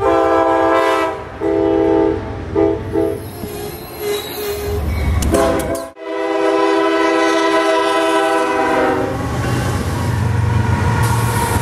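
Diesel locomotive air horns sounding a series of long and short blasts; after a sudden cut about six seconds in, another horn blows one long blast, then the low rumble of a locomotive's diesel engine and wheels passing close.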